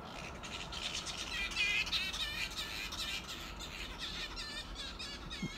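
A roosting colony of flying foxes calling: many overlapping high, chattering squawks, busiest a second or two in.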